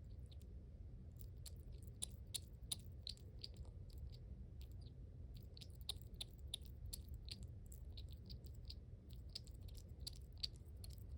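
A small pet chewing dry food: an irregular run of faint, crisp crunching clicks, several a second. The chewing is extra loud, which the owner fears may be a sign of something wrong with its teeth.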